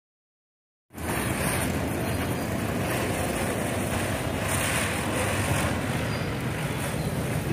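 Silent for about the first second, then a steady rushing hiss from ground fireworks spraying sparks, with no separate bangs.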